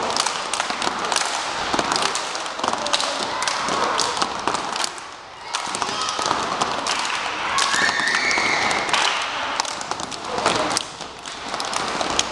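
Children's step team stepping: many sharp foot stomps, hand claps and body slaps from a group of dancers, with a few short voices mixed in.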